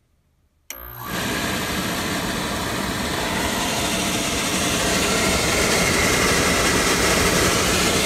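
Beckett oil burner's motor starting suddenly and running, its blower fan giving a steady whirring rush of air that grows slightly louder. The burner is running dry, with no oil reaching the nozzle and no flame.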